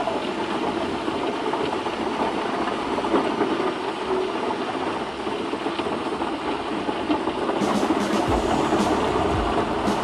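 Large truck-mounted drum wood chipper running under power: a steady, dense mechanical noise, with a few low thumps near the end.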